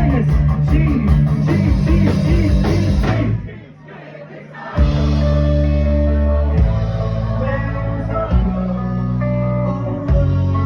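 A live rock band playing loud, with electric guitar, drums and singing. About three and a half seconds in, the music cuts out for about a second, then the band comes back in with held chords.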